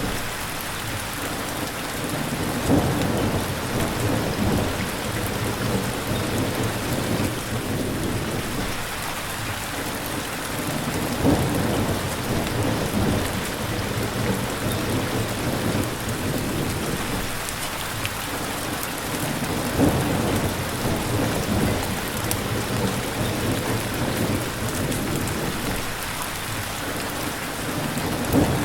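Steady rain with low thunder rumbling through it, and a few short, sharp louder peaks about every eight seconds.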